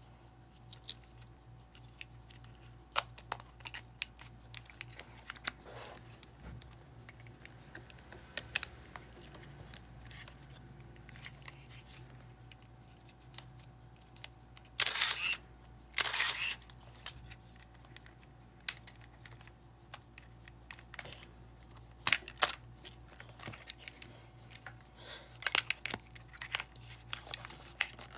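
Konica FS-1 35 mm SLR being handled, with scattered small plastic and metal clicks. About fifteen seconds in come two shutter releases a second apart, each followed by a short run of the camera's built-in motor winder advancing the film.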